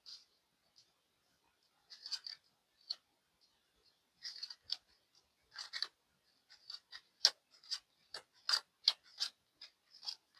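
Tarot cards being shuffled and handled: separate crisp clicks and snaps of card on card, sparse at first and coming faster and louder about seven seconds in.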